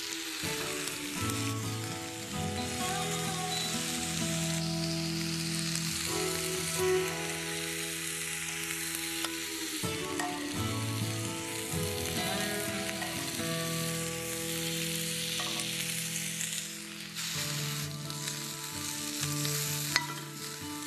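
Slices of prosciutto sizzling as they crisp in a hot, dry nonstick frying pan, stirred and turned with metal tongs. Soft background music with held notes runs underneath.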